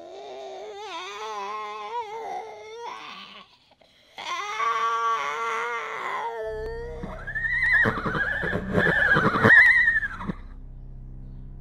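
Horse whinnying: two drawn-out, wavering cries, then louder whinnies in three rising-and-falling arches. A low droning rumble comes in about halfway through and carries on after the whinnies stop.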